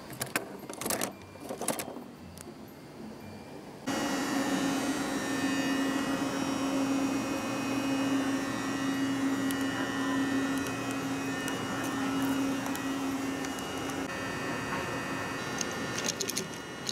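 A few plastic clicks as a die-cast toy car is set into a plastic carry-case shelf. Then an electric train standing at a station platform, its equipment humming steadily with a strong low tone for about twelve seconds, cutting off suddenly.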